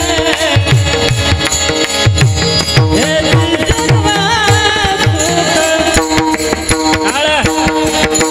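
Marathi devotional kirtan singing of a panchapadi, with a hand drum's deep strokes sliding down in pitch at a steady beat, over a steady held accompaniment.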